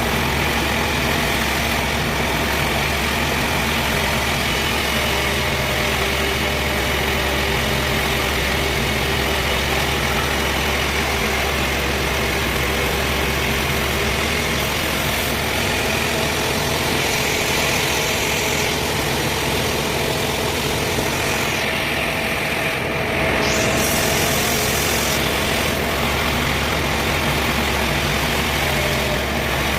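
Engine-driven sawmill running steadily, with a constant engine drone and a high whine.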